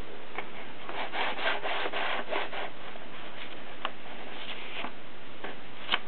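A Continental typewriter's paper and platen being handled: a rasping rub of paper against the roller and its ratchet, lasting about a second and a half from about a second in, then a few single clicks.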